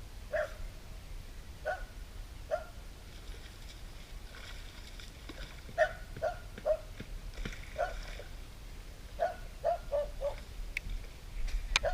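Short animal calls repeated irregularly, sometimes several in quick succession, with a few sharp clicks near the end.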